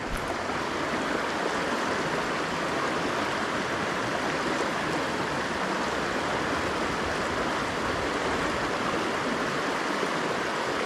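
Creek water rushing and babbling steadily.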